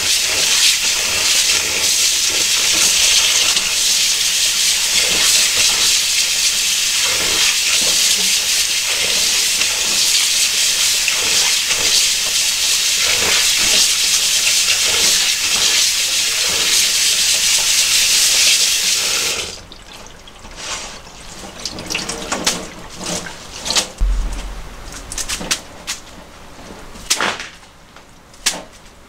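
Kitchen tap running hard onto cooked noodles in a stainless mesh strainer as hands scrub them vigorously to rinse them. About two-thirds of the way through the water stops, and a few short clinks and knocks of kitchenware follow.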